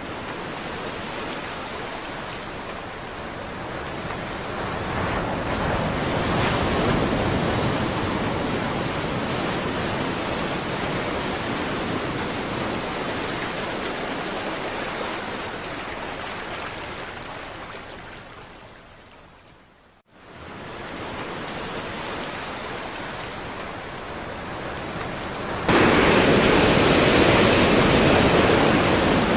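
Ocean surf washing continuously, swelling and then slowly falling away to a brief dropout about two-thirds of the way through. It resumes and jumps suddenly louder near the end.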